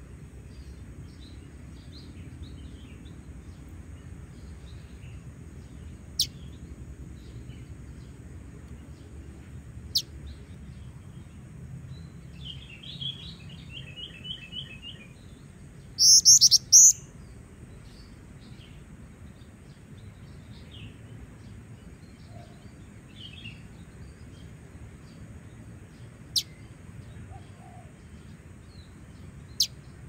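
Female black-winged flycatcher-shrike (jingjing batu) calling: a few sharp, short high chirps spaced several seconds apart, a fast run of repeated notes a little before halfway, and the loudest, two shrill calls just past halfway. Faint chirping of other birds runs underneath.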